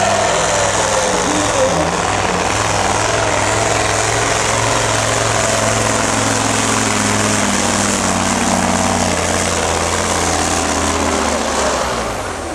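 Diesel engine of a MAN pulling truck running at full load as it drags a weight sled down the track: a loud, steady engine drone. The sound drops near the end.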